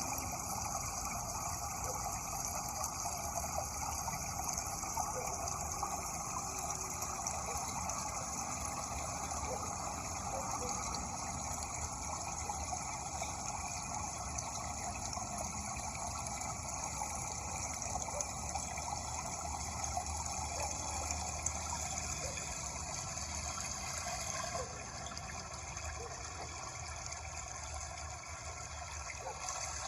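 Steady rush of running water, turning slightly quieter and thinner about five seconds before the end.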